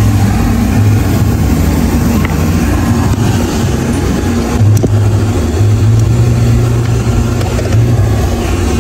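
Coin-operated car-wash vacuum running continuously while a car's rubber floor mats and carpet are vacuumed: a loud, steady low hum under an even rushing hiss.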